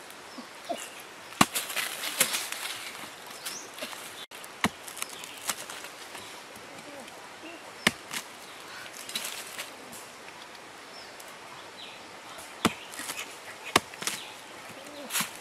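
Machete chopping into a soft, rotten log: irregular sharp strikes every couple of seconds, with rasping and crumbling of the decayed wood between them.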